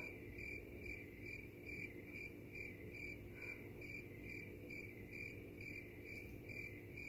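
Cricket-chirping sound effect: a high, even run of chirps about two and a half a second that starts and stops abruptly, the stock "crickets" gag for an awkward silence.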